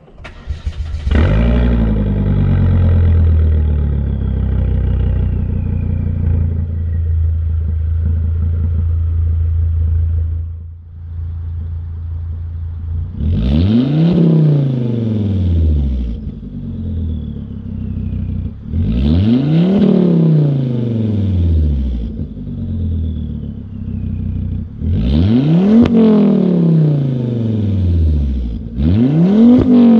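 Volvo XC70 2.5T five-cylinder turbo engine, exhaust with the muffler deleted (stock downpipe, cat and resonator kept). It starts right at the beginning with a quick rev flare, then idles steadily. After a break it is revved four times, each rev rising and falling over a couple of seconds.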